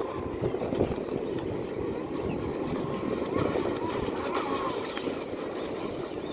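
Vector SR80 Pro brushless electric RC speedboat running at speed across choppy water some way off: a steady rushing noise that holds level throughout.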